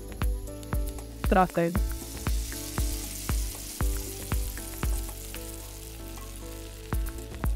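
Chicken and fresh coriander sizzling hot in a frying pan, with repeated knocks and scrapes of a wooden spatula as the food is scraped out into a glass bowl.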